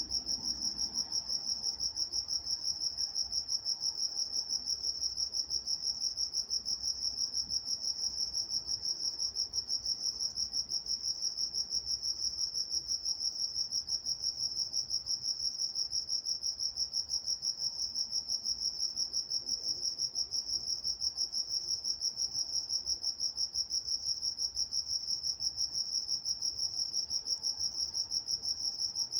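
Crickets chirping at night: a steady, high-pitched chirping in an even, unbroken rhythm.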